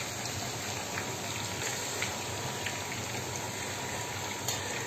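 Cubes of aubergine frying in plenty of oil in a frying pan: a steady sizzle with a few small crackling pops.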